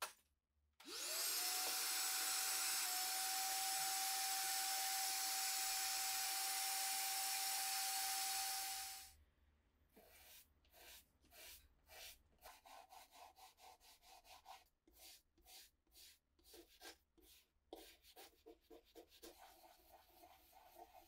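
A vacuum cleaner starts with a rising whine, runs steadily for about eight seconds and then shuts off. After it, a brush scrubs soapy water over a wooden cabinet in quick repeated strokes.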